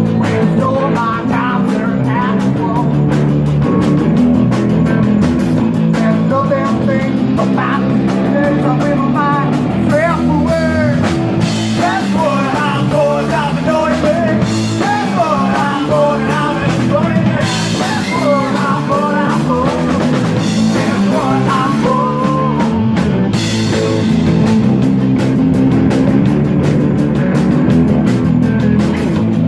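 Rock band playing an instrumental passage: a lead melody bends and wavers over steady bass and drums, then drops out about three-quarters of the way through, leaving the backing playing on.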